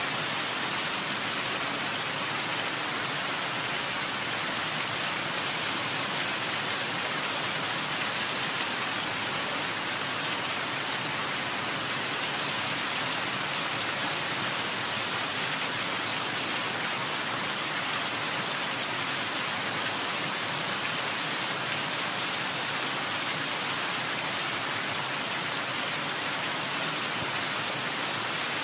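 Steady, unbroken hiss of falling water, even and unchanging throughout.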